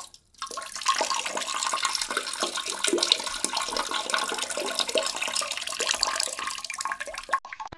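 Toilet flushing: water rushing steadily for several seconds, cutting off shortly before the end.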